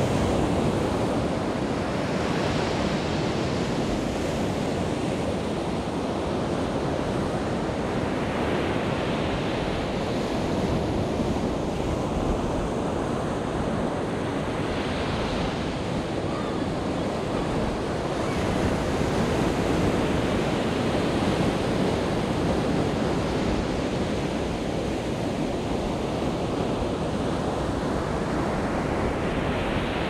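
Surf breaking on a sandy beach: a continuous wash of waves, with each breaker swelling up every several seconds.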